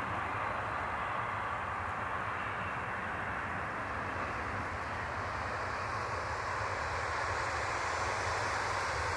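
Boeing 757-200 freighter's two Rolls-Royce RB211-535E4 turbofans running at takeoff thrust during the takeoff roll: a steady, even jet rumble and rush with no breaks.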